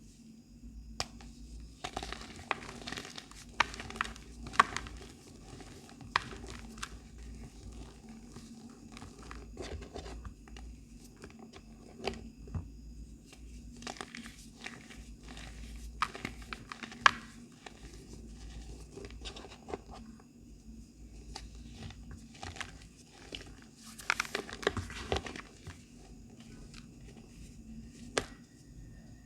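Soft, crunchy black glittery reforms (re-pressed powder blocks, typically chalk) being crushed and crumbled. The crunches come in bursts of crackling with quieter crumbling between.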